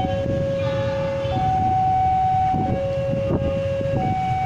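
Railway level-crossing warning alarm sounding as a train approaches: two steady electronic tones, a lower and a higher, taking turns about every second and a half, over a constant low rumble.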